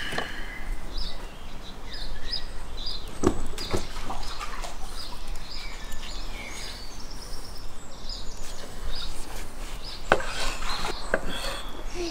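Knife cutting a tomato on a wooden cutting board, with scattered sharp knocks of the blade on the board, the clearest a little after 3 s and again around 10 to 11 s. Small birds chirp in the background.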